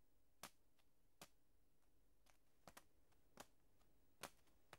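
Near silence, with a few faint short clicks at uneven intervals.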